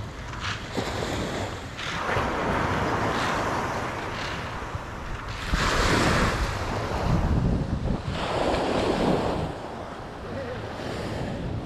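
Sea waves breaking and washing up the shore in several swelling surges, with wind rumbling on the microphone.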